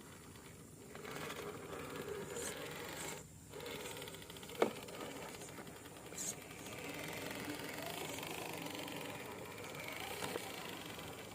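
Small electric motor and gearbox of a radio-controlled model truck whining, rising and falling as it drives, with one sharp click about four and a half seconds in.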